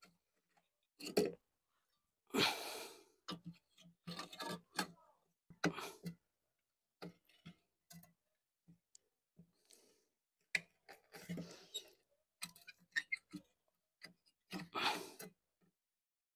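Intermittent handling noises: light clicks and scrapes as a bent sheet-metal sleeve is worked onto a corrugated exhaust flex pipe. The longest scrape comes about two and a half seconds in.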